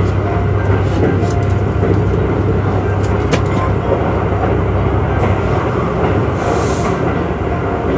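Running noise of a Kintetsu Urban Liner Plus (21000 series) limited express at speed, heard inside the passenger cabin: a steady low rumble of wheels on rail, with a few sharp clicks.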